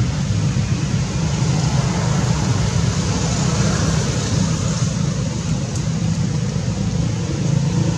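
Steady rumble of road traffic, with vehicle engines running close by.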